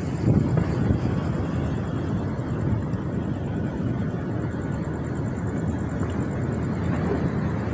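A constant roar of many distant fireworks going off across the city at once, blended into a low, continuous rumble like hundreds of trains going in a circle. There are a few louder bangs about half a second in.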